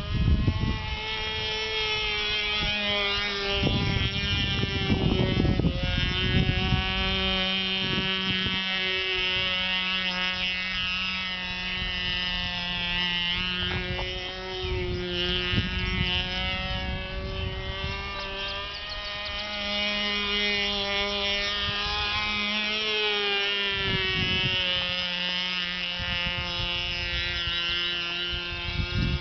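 Nitro glow-fuel engine of a radio-controlled model airplane buzzing in flight overhead, its pitch drifting up and down as the plane flies through stunts.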